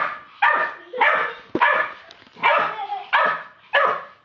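Staffordshire bull terrier puppy barking repeatedly, about seven short, high-pitched barks roughly half a second apart.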